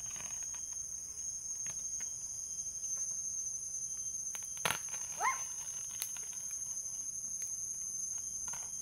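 Steady high-pitched chorus of forest insects, with a few sharp knocks scattered through it and one short rising call about five seconds in.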